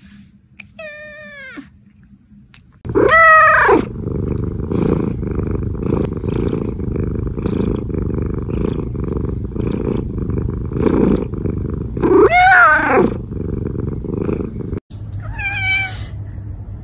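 Domestic cat meowing several times: a short meow about a second in, loud meows about three and twelve seconds in, and another just before the end. From about three seconds in a close, low rumbling purr runs under the calls.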